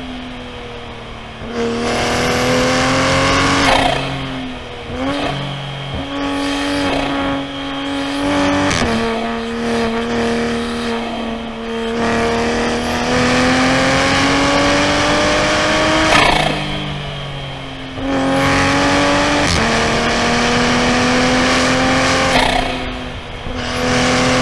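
Toyota A90 Supra's B58 3.0-litre turbocharged inline-six under acceleration: the engine note climbs under throttle, falls away sharply several times as the driver lifts or shifts, then builds again, with a long steady pull in the middle.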